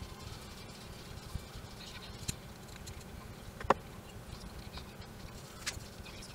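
Handling sounds of leather pieces and a skiving knife on a cutting mat: soft rustling and a few light clicks. The loudest is one sharp tap a little past halfway.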